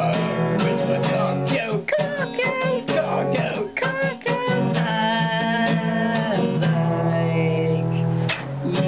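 Acoustic guitar being strummed, a run of ringing chords with quicker strokes through the middle.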